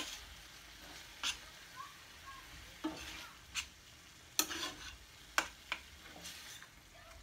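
A spoon stirring ground turkey in a frying pan, with irregular scrapes and knocks of the spoon against the pan over a faint sizzle of the meat cooking on the gas flame.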